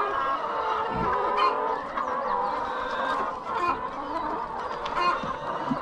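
A large flock of laying hens in a poultry shed, many clucking and calling at once in a dense, continuous chorus.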